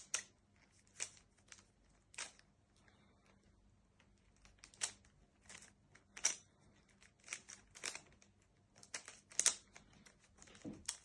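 Plastic Rubik's cube being turned by hand: a string of short, uneven clicks and scrapes as the layers are twisted during solving.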